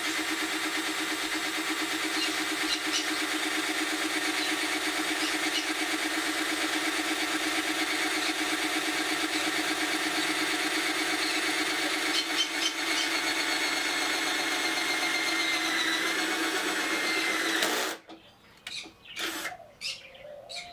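Power drill running steadily as it bores a hole through the car's metal bumper support, dipping slightly in pitch near the end before stopping abruptly, followed by a few light clicks.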